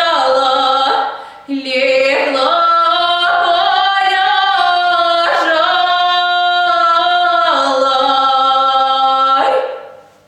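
A woman sings a folk song solo and unaccompanied, in long held notes that slide between pitches. She takes a brief breath about a second in, and the last note fades out near the end.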